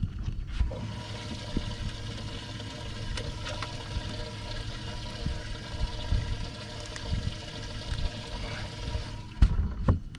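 Water rushing and splashing from a bass boat's livewell pump, with a faint steady motor whine; it switches on about half a second in and cuts off near the end.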